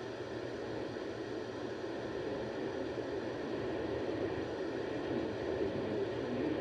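Radio static from a weak, noisy signal: a steady hiss and rush with no clear tones, growing slowly a little louder.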